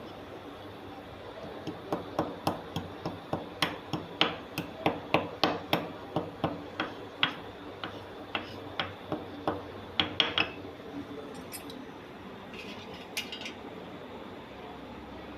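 Whole spices being crushed with a hard utensil. A run of sharp knocks, two to three a second, starts about two seconds in and stops about ten seconds in, followed by a couple of faint clinks.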